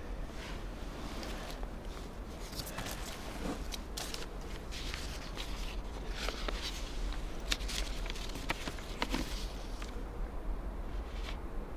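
Paper crinkling and rustling as a folded sheet is unfolded and handled: a run of short, sharp crackles that is busiest in the middle and dies away near the end.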